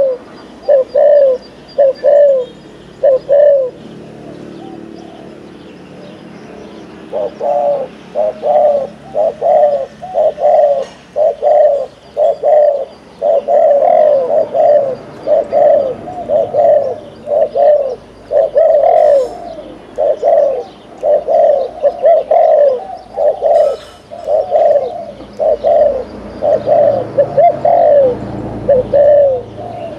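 Spotted dove giving its bowing coo, the courtship 'gù' of Vietnamese dove keepers: short, low coo notes. A few come at the start, then after a pause of a few seconds they follow at about two a second.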